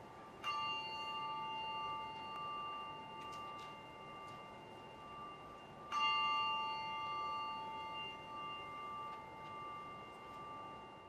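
A bell struck twice, about five and a half seconds apart, each strike ringing on and slowly fading.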